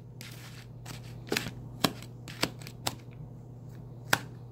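Kitchen knife cutting spiralized zucchini and squash strands in a plastic tub, with about five sharp taps of the blade at uneven intervals over a steady low hum.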